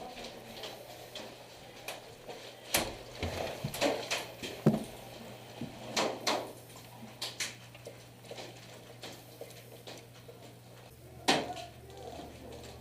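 Scattered sharp clicks and knocks at irregular intervals, the loudest a few seconds in and again near the end, over a faint steady hum.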